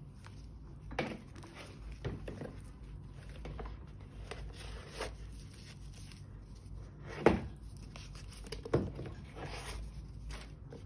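Leather flap handbag being handled: rustling of paper stuffing and leather, with several knocks and taps, the loudest about seven seconds in.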